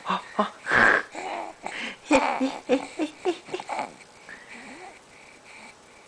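Young baby vocalizing: short grunts and coos that slide up and down in pitch, loudest about one and two seconds in. The sounds die away after about four seconds.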